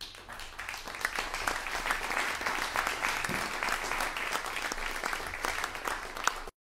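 Concert audience applauding at the end of a piece, dense and steady, then cut off abruptly near the end.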